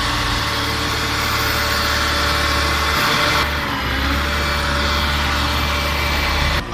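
Heavy engine running steadily with a low, even hum, cutting in and out abruptly.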